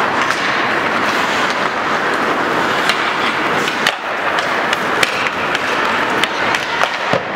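Ice hockey skates scraping and carving on the ice, with several sharp clacks of sticks striking the puck.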